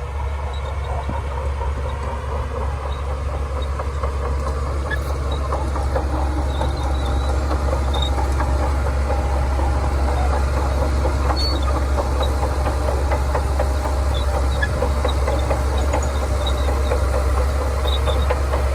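Shantui crawler bulldozer's diesel engine running steadily, with a continuous clatter from its steel tracks as it moves.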